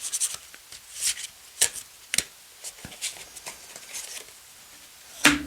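Thick tarot cards being handled: scattered light swishes and taps as cards are drawn and laid out, with a louder sudden sound near the end.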